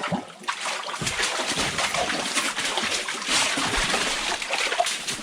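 Water splashing and sloshing: a quick run of small, irregular splashes.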